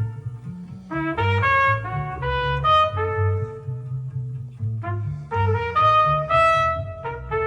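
Music played through Cabasse Minorca MC40 bookshelf speakers: a brass lead melody in changing held notes over a bass line.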